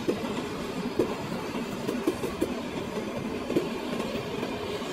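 Hot metal blade scraping and sliding along the plastic walls of a lead-acid battery case as it melts through the seams: a continuous rough scraping with many small irregular knocks.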